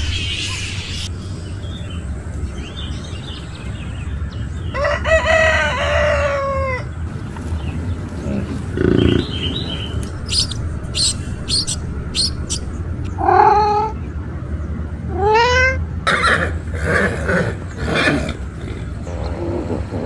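A series of animal calls and bird chirps over a steady low hum. A long call falls in pitch about five seconds in. Short high chirps come around ten seconds, then two short rising calls, then a run of chirps near the end.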